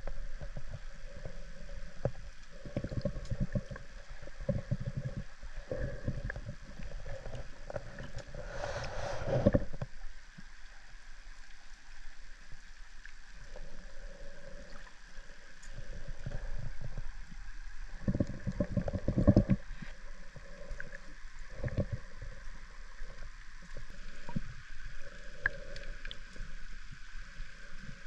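Underwater drone's thrusters running with a steady hum, heard from on board underwater, with irregular low surges of water rushing and gurgling past the hull, strongest about a third of the way in and again past the middle.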